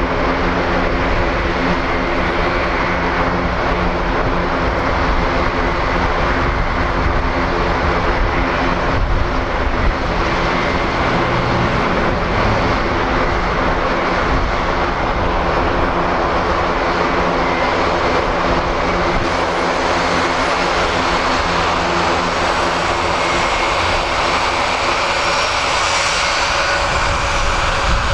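Airbus A400M's four TP400-D6 turboprop engines and eight-bladed propellers running as the aircraft taxis: a loud, steady drone with a low hum of several steady tones. Over the last few seconds, as it passes side-on, the low hum fades and a higher engine whine comes through.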